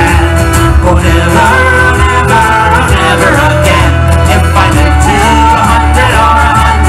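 Live Irish folk band playing an instrumental break: bowed fiddle carrying the melody over strummed acoustic and electric guitars and a frame drum.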